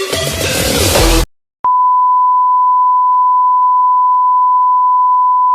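Electronic dance music cuts off about a second in. After a brief silence, a single steady electronic beep tone starts at one high pitch and holds without change.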